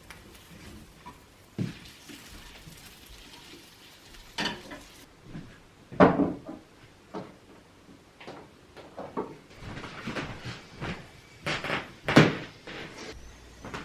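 Kitchen clatter: scattered knocks of things being handled and set down, with two sharper bangs about six seconds in and near the end.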